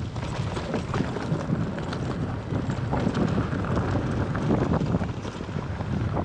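Wind rushing over the microphone as a mountain bike rolls down a rocky gravel trail, with the tyres crunching and small irregular rattles and knocks from the bike over the stones.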